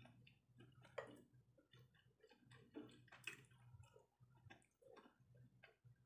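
Very faint eating sounds: chewing and scattered small clicks of a metal fork picking up steamed siomai, over a low steady hum.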